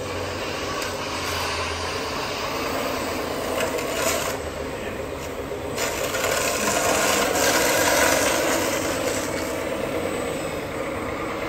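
A radio-controlled scale-model Komatsu WA470 wheel loader working in sand, its bucket scraping and grating as it pushes sand across paving stones. It grows louder a little past halfway through, then eases off.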